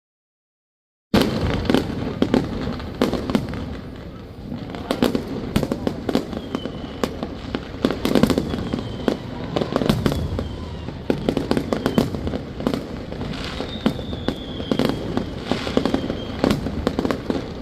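A fireworks display going off, starting about a second in: a dense, irregular run of bangs and crackles over a rumbling low end, with a few faint falling whistles now and then.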